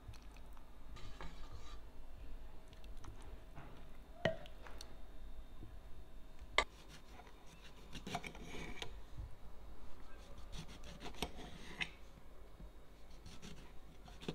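A ladle clinking against a glass bowl as beans are served, then a knife slicing a lemon on a glass plate: several rasping cuts through the rind, with sharp ticks of the blade on the glass.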